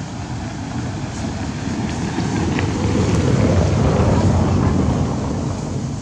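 A passing vehicle's low rumble, swelling to a peak about four seconds in and then fading.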